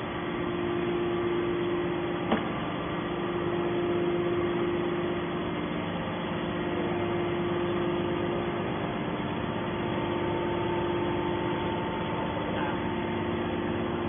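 Hydraulic scrap metal baler's power unit running steadily: an even mechanical hum with a few held tones, and one sharp knock about two seconds in.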